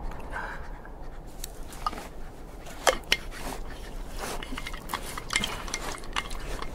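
Sound-effect footsteps on stony ground, with light clinks and rubs of carried gear. Two sharper cracks come in quick succession about three seconds in.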